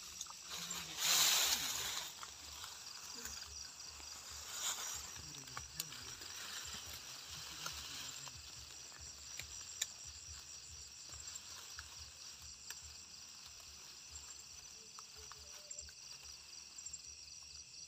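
Night insect chorus of crickets trilling steadily with a fast even pulse. Rustling and handling noise runs through it, with a loud burst of rustling about a second in.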